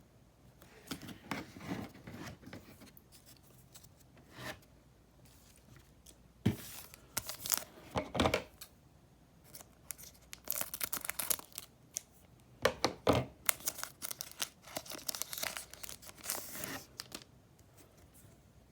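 A foil trading-card pack being torn open, with bursts of tearing and wrapper crinkling at irregular moments, most of them in the second half.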